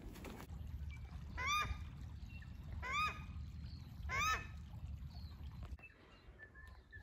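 A bird gives three short honking calls about a second and a half apart, each note rising then falling in pitch, over a steady low rumble.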